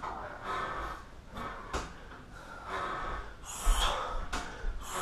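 A person breathing hard, panting in loud breaths about once a second, with the sharpest gasping breaths near the end: out of breath after heavy-bag kicking.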